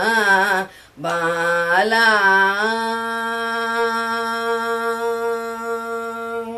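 A woman singing a devotional bhajan alone, without accompaniment: a short phrase, a brief break about a second in, then a wavering phrase that settles into one long held note.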